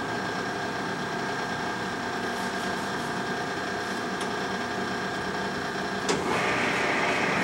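Clausing Colchester engine lathe running with a steady mechanical hum while its chuck is at rest. About six seconds in a clunk comes as the spindle control lever is thrown, and the running sound grows louder as the spindle starts turning.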